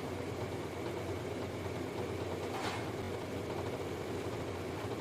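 Steady low background hum with no changes in level, broken once, about two and a half seconds in, by a single short click.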